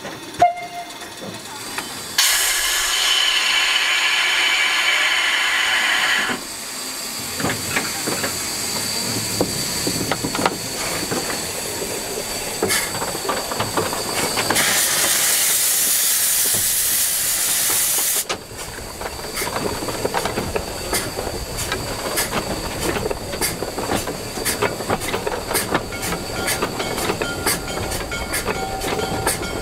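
Steam locomotive running gear in motion: a sharp knock near the start, then two long bursts of hissing steam, the second the brightest, about halfway through. After them comes a quick, rhythmic clicking and clanking of the turning wheels and rods.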